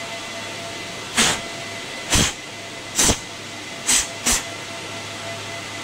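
Five short hissing puffs of air while an optical XFP transceiver module is being cleaned with alcohol and dried. The last two come close together. A steady equipment-fan hum runs underneath.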